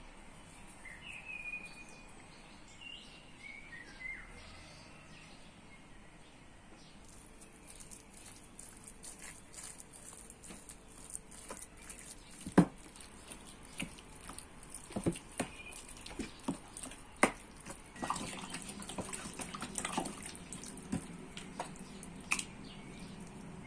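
Faint bird chirps, then a string of small clicks and knocks of kitchen handling, with one sharp knock about halfway through. A denser noisy clatter follows near the end.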